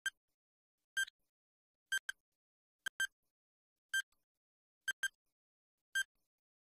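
Countdown timer sound effect ticking: a short, pitched electronic tick about once a second, some ticks doubled.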